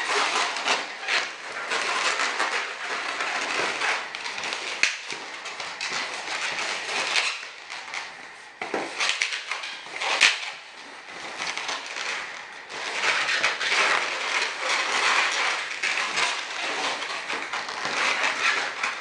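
Latex modelling balloons rubbing and squeaking against each other and the hands as they are twisted into a dragonfly's wings, with a brief louder noise about ten seconds in.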